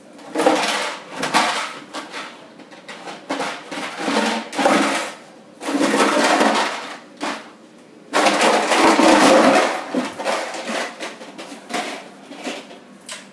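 Two puppies playing with a toy on a tile floor, making loud, irregular bursts of rustling, scraping noise as they nose and push it around.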